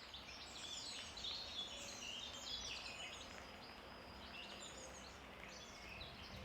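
Quiet outdoor birdsong: several birds singing at once in a dense chorus of quick overlapping chirps and trills.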